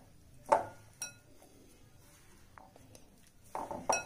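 A hand mixing crumbly dough in a glass mixing bowl, with a few short knocks and clinks against the glass.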